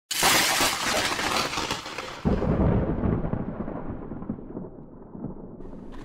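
A sudden loud thunder-like crash with a rolling rumble that surges again about two seconds in, then slowly dies away, the hiss fading first.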